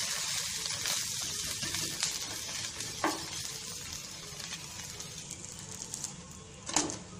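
Egg dosa sizzling on a hot griddle with its egg-coated side frying face down just after the flip. The sizzle is loudest at the start and slowly eases off. Short clicks come about three seconds in and again near the end as a spatula works the dosa.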